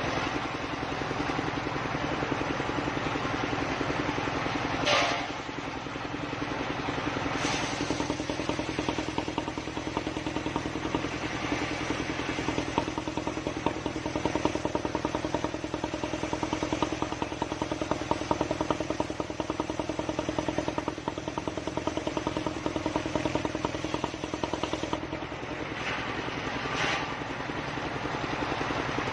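Engine-driven circular sawmill rig running steadily, with a steady hum and fast even engine pulsing; two short, sharp noises stand out, about five seconds in and near the end.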